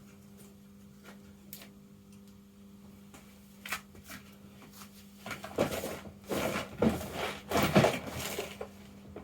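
Objects being moved and rummaged through on a workbench: a few light knocks, then a run of rustling and clattering from about five and a half seconds in until near the end, over a faint steady hum.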